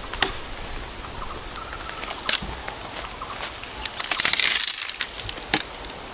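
Wood being chopped for firewood: a few sharp knocks a couple of seconds apart, with a burst of crunching and rustling about four seconds in.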